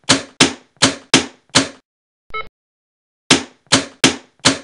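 Two runs of sharp knocks, about three a second, with a short electronic beep in the pause between them.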